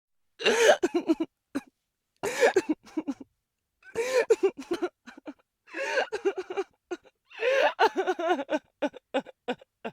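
A person crying in five sobbing fits with silent gaps between them. Each fit opens with a high, wavering wail and breaks into short, gulping sobs.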